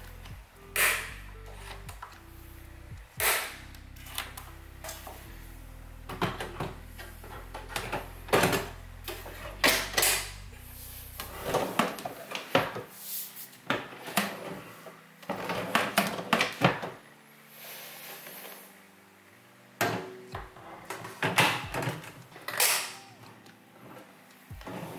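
Irregular sharp clicks and knocks of drawer hardware being fitted in an IKEA SEKTION cabinet: a drawer snapping onto its metal MAXIMERA runners, sliding in and knocking shut, and its front being fixed in place. Soft low background music runs under the first half.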